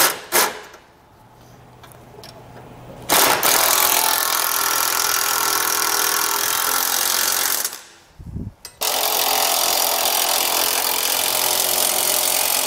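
Cordless impact wrench with a 9/16 socket snugging down the base plate bolts: a couple of short bursts at the start, then two long runs of about four to five seconds each, separated by a brief pause.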